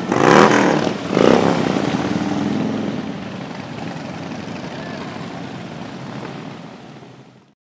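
Large touring motorcycles riding past one after another. Two loud engine passes come in the first second and a half, then a steadier rumble of more bikes that fades out near the end.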